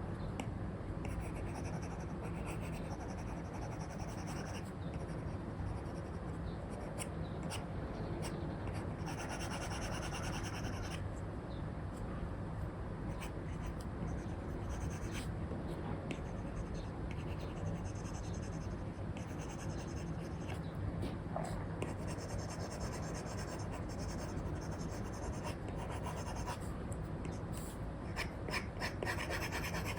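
Apple Pencil 2 with an Elecom replacement nib sketching on a paper-like film over an iPad screen. Spells of scratchy strokes alternate with light taps of the nib, over a steady low background hiss.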